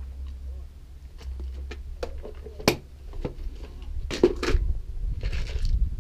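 Clear plastic tackle boxes being handled: small plastic clicks and rattles of the lids and of loose hooks and beads inside, with one sharp click about two and a half seconds in. From about four seconds on, louder rubbing and low rumbling handling noise.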